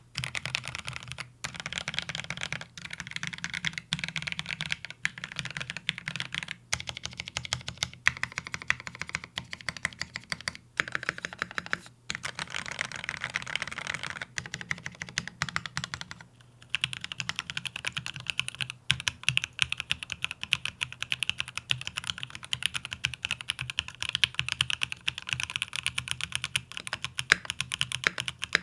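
Mechanical keyboard being typed on fast: an XO K80 with a polycarbonate case, lubed Durock L4 switches and Macaron PBT keycaps. The keystrokes come in a steady rush broken by brief pauses, with a longer pause about 16 seconds in and denser typing after it.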